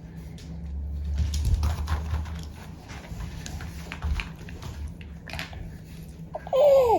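Soft rustling and light knocks of handling in a small room, with a low rumble in the first couple of seconds, then a baby's short vocalization falling in pitch near the end.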